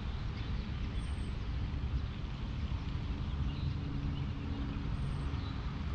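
Wind buffeting the microphone, a steady low rumble. A faint low hum joins about two and a half seconds in.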